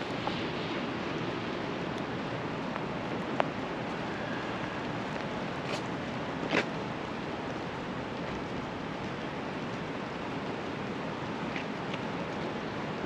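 Steady hiss of rain and traffic on wet city streets, with a sharp click about three and a half seconds in and a louder, brief knock about six and a half seconds in.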